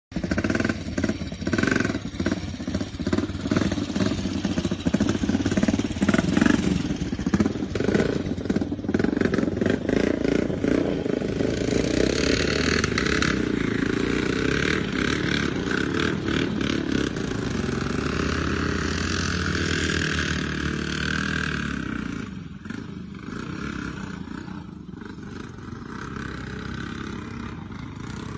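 Motorcycle engine running on an uphill ride, with many short knocks and rattles in the first half. The sound eases off in loudness about twenty-two seconds in.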